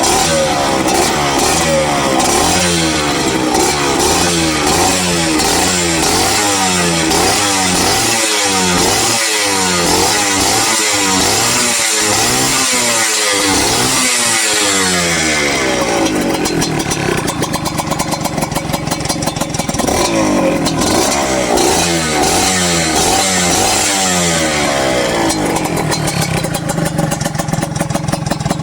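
Modenas Dinamik 120 motorcycle engine breathing through an aftermarket GL exhaust pipe, revved in quick repeated throttle blips. About halfway through it drops to a lower, steadier running with a few more revs, settling toward idle near the end.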